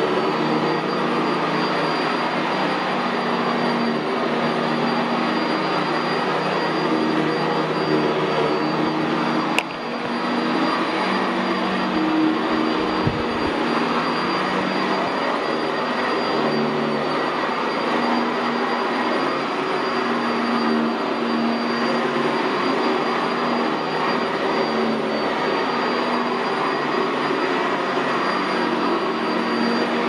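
Sanitaire SC679J upright commercial vacuum cleaner, fitted with a Vibra-Groomer II brush roll, running steadily as it is pushed over carpet, with a thin high whine over the motor and airflow noise. A single sharp click about ten seconds in.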